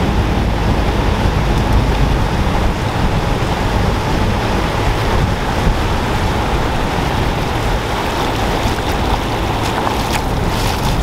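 Surf breaking and washing up the beach, with heavy wind rumble on the microphone. A few sharp clicks and splashes near the end.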